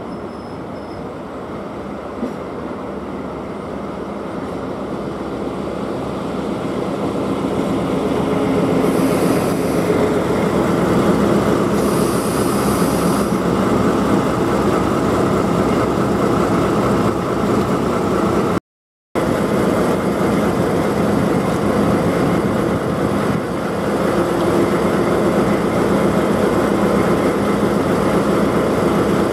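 DE10 diesel-hydraulic locomotive's V12 diesel engine running as it pulls a rake of railcars in alongside and slows to a stop, getting louder as it comes closer over the first ten seconds. Two brief high squeals from the train's running gear come about nine and twelve seconds in, and the sound cuts out for half a second near the middle.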